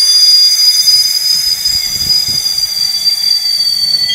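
Steam whistle on a camote vendor's sweet-potato steamer cart, blowing one continuous shrill whistle from the cart's steam, its pitch sinking slightly near the end.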